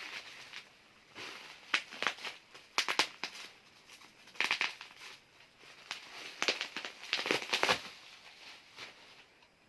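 Plastic wrapping crinkling and rustling in irregular bursts as it is handled.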